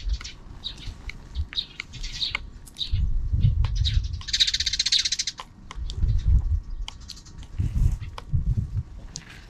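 Sparrows chirping again and again, with a burst of rapid chattering about four seconds in, over intermittent low rumbles.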